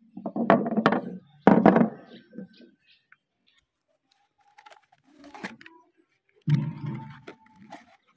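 Bars of soap handled and set down on a wooden table in a few dull thuds over the first two seconds. After a pause comes the crinkle and scrape of a cardboard soap carton being handled and its end flap opened, with another thud about six and a half seconds in.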